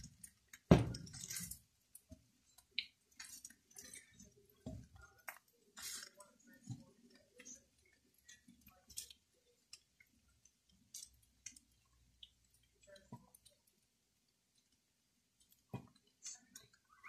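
A spatula stirring and tossing fried rice in a nonstick wok: scattered soft scrapes and taps, thick in the first half and sparse after, with the loudest about a second in.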